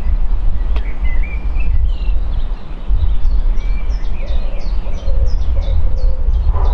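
Wind buffeting the microphone, giving a heavy, uneven low rumble, with a single sharp click near the start. A songbird sings a fast run of short, high, downward chirps, about two or three a second, from about two seconds in.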